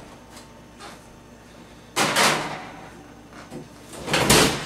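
Kitchen oven as a cake pan goes in: a metal scrape of pan and rack about two seconds in, then the oven door shut with a clunk near the end.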